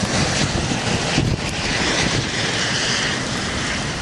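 Gusty storm wind buffeting the camera microphone: a steady rushing noise with low, uneven rumbling buffets.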